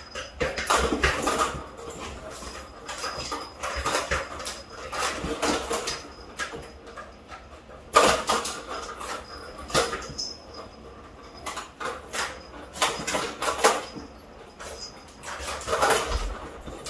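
Plastic ball rattling and rolling around a tiered tower-of-tracks cat toy as Bengal kittens bat at it, with irregular clicks and knocks of paws against the plastic; one sharp knock about halfway through.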